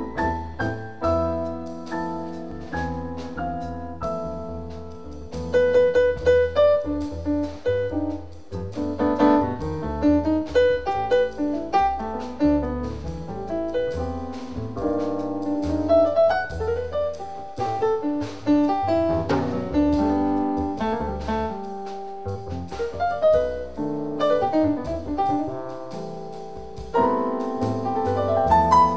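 Live jazz piano trio: stage piano playing chords and melody over upright double bass and a drum kit with cymbal strokes. The playing grows louder about five seconds in and again near the end.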